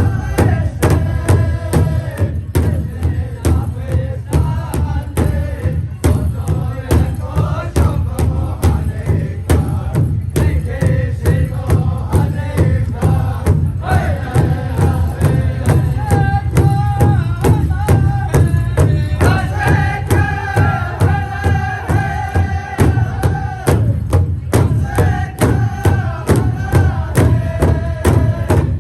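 Powwow drum group: several singers chanting a song in unison over a large shared drum struck in a fast, steady beat.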